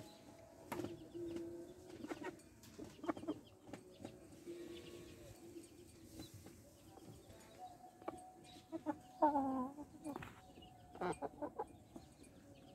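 Young Aseel chickens clucking in a wire cage, with a louder squawking call about nine seconds in and scattered knocks and taps throughout.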